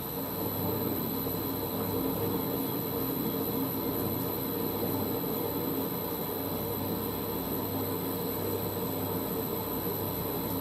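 Holbrook C8 toolroom lathe running steadily at low speed with a hand-ground parting-off tool in the cut.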